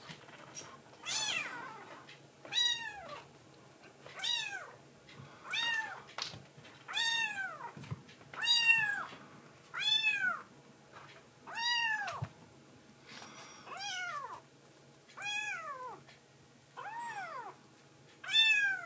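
Kitten meowing over and over, about a dozen high calls roughly one and a half seconds apart, each rising and then falling in pitch.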